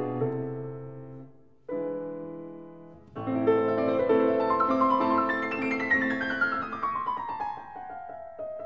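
Background piano music: a held chord fading away, fresh chords struck about a second and a half and three seconds in, then a falling run of notes.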